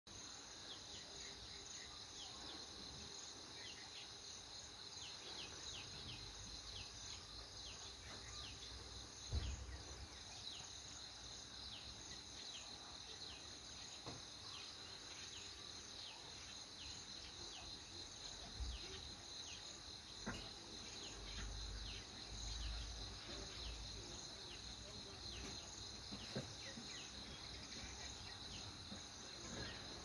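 Faint, steady, high-pitched insect chorus with many short falling chirps over it. A few low thumps break in, the loudest about nine seconds in.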